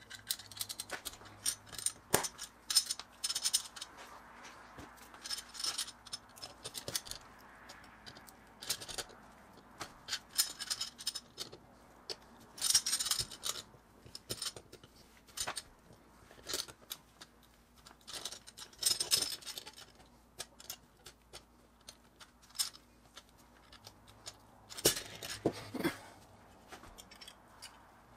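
Irregular clicks, taps and light rattles of small metal and plastic toy-truck parts being handled and fitted together: a Mini Tonka stake truck's pressed-steel chassis, wheel axles, stake body and cab being reassembled by hand.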